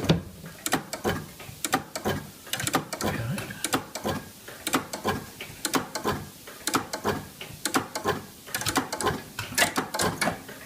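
Relays and impulse clock movements of a GPO exchange clock system clicking and clattering, several sharp clicks a second in an uneven rhythm, as the standby master clock is stepped forward.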